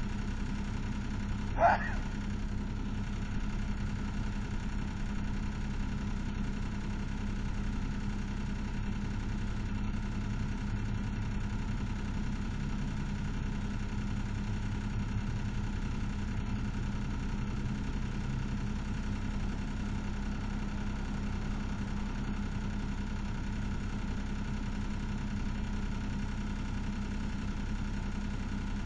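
Pickup-based service truck's engine idling with a steady, even hum. About two seconds in, a short rising chirp sounds once.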